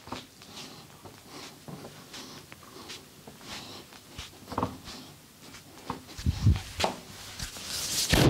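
Hands working on a person during a massage: irregular rubbing, soft taps and clicks, with a few heavier low thumps around six seconds in.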